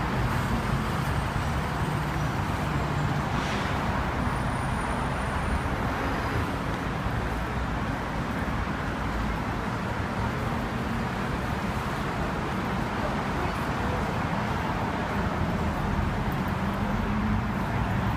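Steady traffic noise from a busy city street, with cars and buses running on the road alongside the sidewalk.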